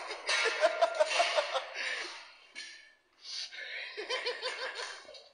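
People laughing hard in quick pulsing bursts, in two bouts with a brief break near the middle.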